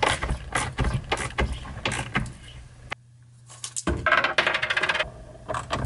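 Small metal hardware and hand tools clicking and clinking: screws driven with a screwdriver and wrench, then small metal parts such as bearings and nuts rattled in the hand, during longboard assembly. Rapid clicks for about two seconds, a pause of about a second, then another run of clinks.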